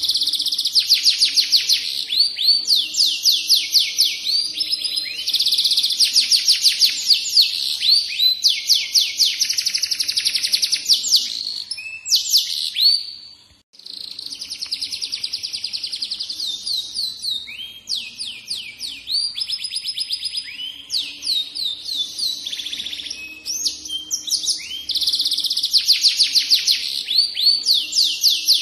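Domestic canary singing a long, continuous song made of fast trills and rolls, each a rapid run of repeated high notes, passing from one trill straight into the next. The song breaks off briefly about halfway through, then carries on.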